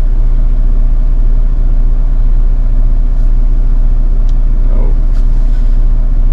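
Truck engine idling with a steady low drone. A few faint clicks and a short falling squeak come about three to five seconds in.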